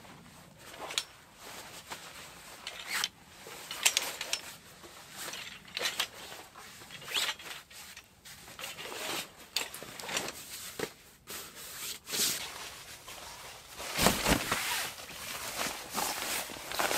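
Folding camp cot being set up: irregular clicks, knocks and scrapes from its metal frame and legs. Near the end comes a louder spell of fabric rustling as a bag is spread over the cot.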